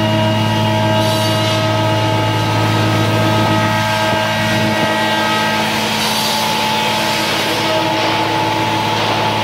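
CNC router YL 48152R+B running while machining wood panels: a steady machine hum with several held tones from the spindle, vacuum and dust extraction. A rushing hiss grows louder from about six seconds in as the cutting goes on.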